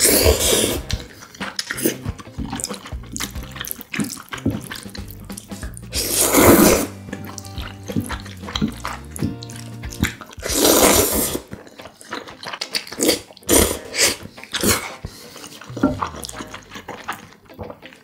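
Wet, noisy slurping of jjapaguri noodles (mixed black-bean and spicy instant noodles) straight from chopsticks. Three long slurps come at the start, about six seconds in and about eleven seconds in. Between them are short wet chewing and smacking clicks.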